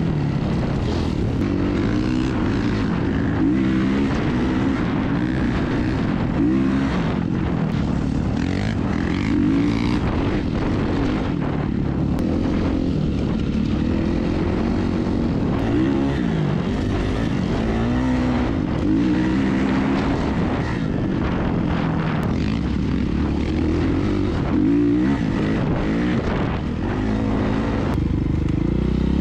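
Off-road vehicle engine running hard, its pitch rising and falling again and again as the throttle opens and closes.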